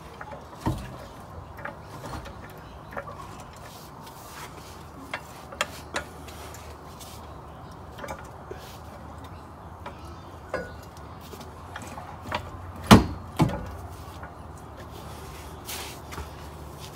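Scattered clicks and knocks of hand tools on metal as bolts are fitted to a Holden Commodore's rear differential, with the loudest knock, followed by a second, about three quarters of the way through.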